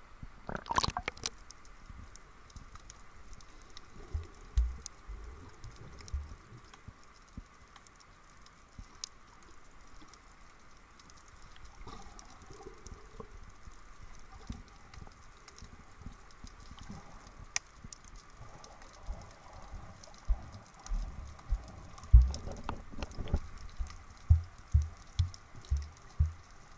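Underwater sound through a hand-held action camera: a splash as the camera goes under about a second in, then a muffled underwater background with scattered faint clicks and low knocks. In the last few seconds come regular low thumps, about one a second, from the snorkeler's swimming strokes moving the camera.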